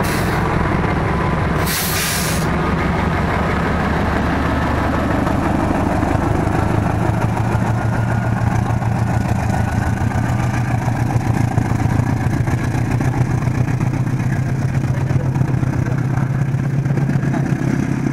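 A CC206 diesel-electric locomotive's engine runs steadily under load as the train rolls past at low speed, with the wheels clattering on the rails and growing louder after a few seconds. A short hiss of air is heard about two seconds in.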